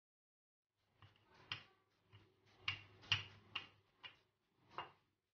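Rolling pin knocking against a marble counter as dough is rolled out: a series of about eight irregular sharp knocks, starting about a second in.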